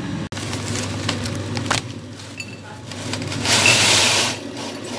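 Crisp deep-fried gobies tipped onto a ceramic plate: a dry, crunchy rustling clatter lasting under a second, about three and a half seconds in, after a single click earlier, over a steady low hum.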